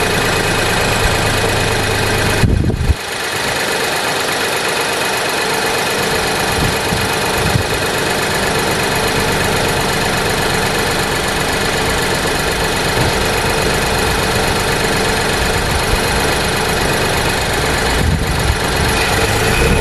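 A machine running steadily with a loud, even rush of noise. A low hum through it stops about three seconds in, with a brief break in the sound then and again near the end.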